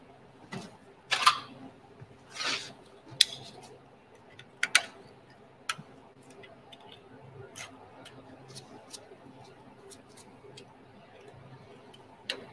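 Hand tools being handled on a metal equipment cart: a few short scrapes and sharp clicks in the first six seconds, then a low steady hum with occasional light ticks and one more click near the end.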